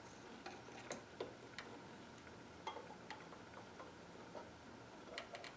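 Light, irregular clicks and ticks, about a dozen, from the mechanism of a spring-driven Magnemite portable tape recorder being turned and handled, with a few quick clicks in a cluster near the end.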